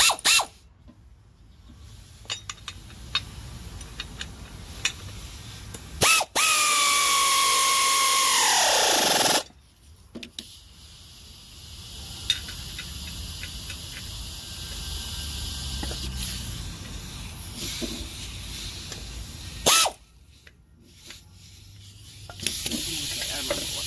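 Pneumatic air ratchet run for about three seconds with a steady whine, then falling in pitch as it spins down. Sharp clicks come before and after the run, and a steady hiss starts near the end.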